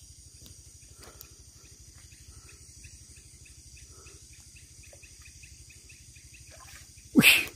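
Night insects calling steadily, crickets chirping in a regular pulse about four times a second over a constant high buzz. Near the end, a short, loud vocal exclamation breaks in.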